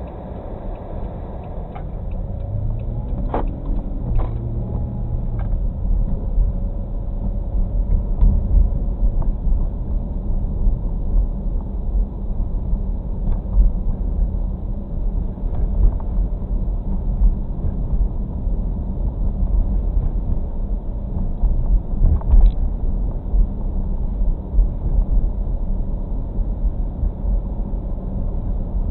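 Driving noise inside a moving car, picked up by a dashcam's built-in microphone: a steady low rumble of engine and tyres on a wet road, with a few faint clicks.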